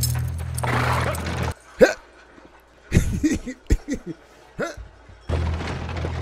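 Background music that cuts off about one and a half seconds in, followed by a man laughing in several short bursts; the music comes back near the end.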